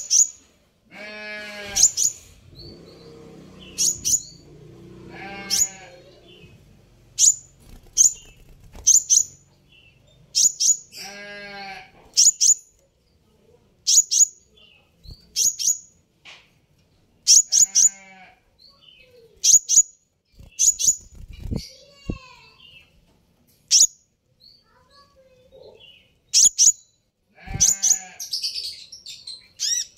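Van Hasselt's sunbird (kolibri ninja) giving sharp, very high chirps every second or so, often in quick pairs, the agitated calls it gives in answer to a provoking sound. Several longer wavering calls with a low buzzy pitch sound between them.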